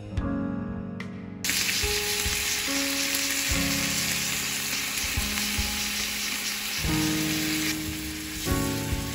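Yogurt-and-miso pickling liquid hitting a hot frying pan of pork steaks and onions. It sizzles suddenly about a second and a half in, then keeps frying and bubbling steadily.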